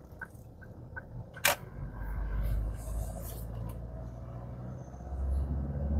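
Car engine heard from inside the cabin, its revs rising twice as the car pulls away from a stop on a slope, with a single sharp click about a second and a half in.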